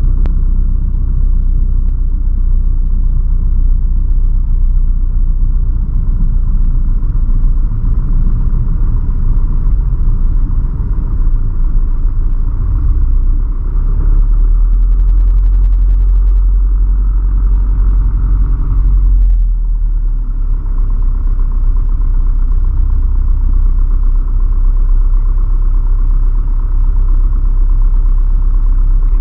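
A light aircraft's piston engine and propeller, heard from inside the cockpit: a loud, steady drone. Its low note strengthens about halfway through and dips briefly near twenty seconds in.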